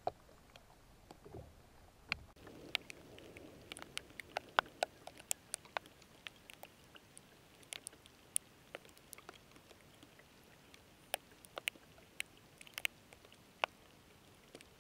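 Scattered raindrops tapping on a camera's waterproof housing: irregular light ticks, several a second, some sharper than the rest, over a faint background hiss.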